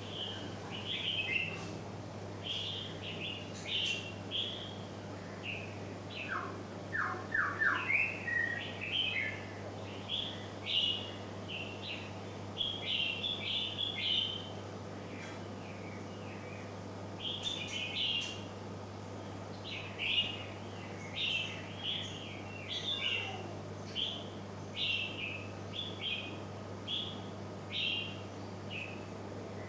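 Small birds chirping repeatedly, short high chirps coming every second or so, with a quick run of four lower notes about seven seconds in. A steady low hum runs underneath.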